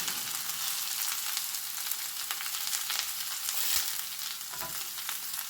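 Ridge gourd peels sautéing in a little oil in a pan: a steady sizzle with scattered small crackles.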